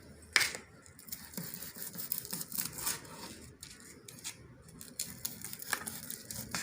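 Fried chicken being cut into bite-sized pieces on a cutting board: irregular taps and crisp clicks of the blade, the sharpest about half a second in.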